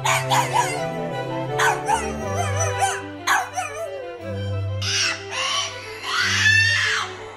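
Dog howling in drawn-out, wavering cries, about three in a row, then further cries near the end, over background music with a steady low bass line.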